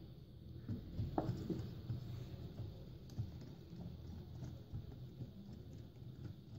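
Hand wire whisk stirring sponge cake batter in a glass bowl: faint, irregular clicks and taps of the wires against the glass, one a little sharper about a second in.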